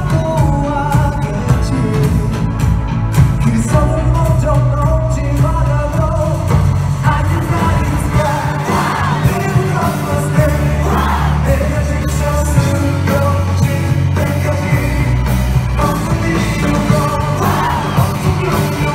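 Live pop-rock band with a lead vocalist singing, loud and full of bass, as heard from within a concert audience.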